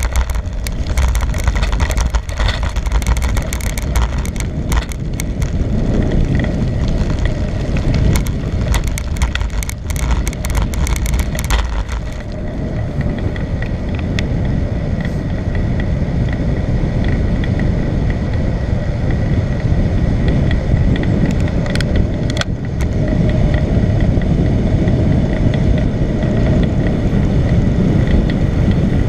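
Bicycle riding at speed: wind rushing over the microphone, with the bike and camera mount rattling over a rough surface. The rattling is dense for the first twelve seconds or so, then eases to a steadier rushing noise.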